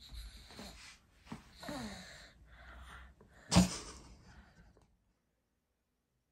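A young child's breathy vocal noises and short gasps, then a loud, sharp burst of breath like a sneeze about three and a half seconds in.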